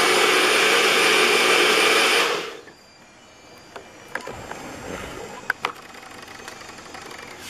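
NutriBullet blender motor running steadily at full speed, then stopping about two and a half seconds in. A few light clicks and knocks follow as the cup is taken off the base.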